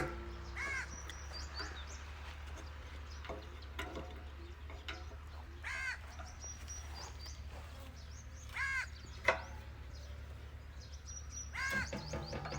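A bird calling outdoors, several separate calls a few seconds apart, over a steady low hum. There is one sharp knock about nine seconds in.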